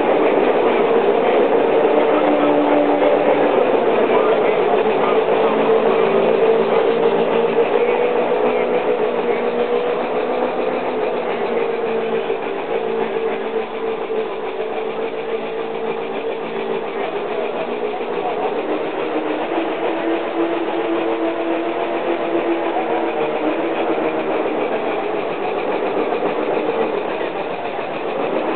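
Small model twin oscillating steam engine with slide valves running steadily, with the chatter of voices behind it.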